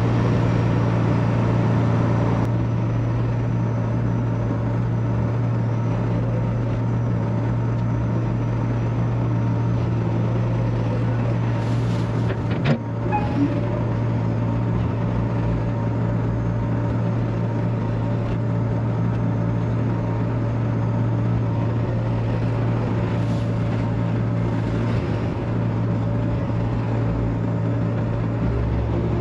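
Steady drone of farm machinery engines, the tractor at the feed mixer and the loader, running while chopped corn silage is loaded into the mixer tub. A short knock about twelve seconds in.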